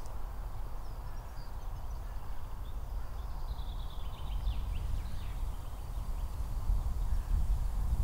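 Outdoor wind rumble buffeting the microphone, with faint bird chirps for a couple of seconds about halfway through.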